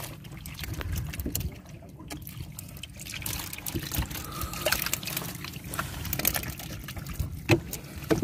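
A heap of live coral catfish (striped eel catfish) squirming and flopping against each other, giving a dense, irregular crackle of small wet slaps and squelches, with one sharper slap near the end.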